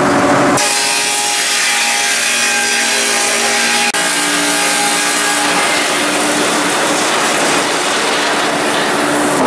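Laimet 120 sawmill running and sawing timber: a loud, steady saw and machine noise with a held hum. The sound changes abruptly about half a second in and again near 4 seconds.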